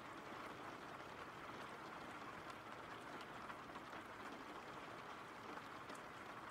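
Faint, steady rain: an even hiss with scattered small drop ticks.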